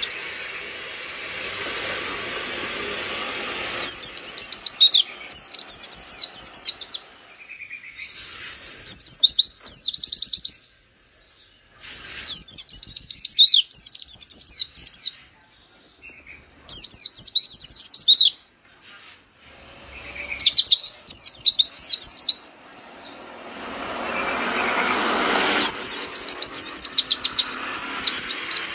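Caged white-eye (pleci) singing in fast bursts of rapid, steeply falling high notes, each burst about a second long and repeated after short gaps. Under it is a steady rushing background noise that swells at the start and again near the end.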